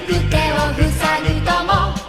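Background music: a pop-style track with a steady bass beat and a wavering vocal melody.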